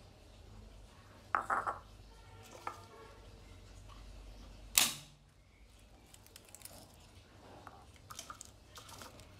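A few light knocks and clatters, then about five seconds in one sharp, loud smack of a knife's flat blade crushing a garlic clove against a wooden chopping board, followed by small taps and clicks as the clove is handled.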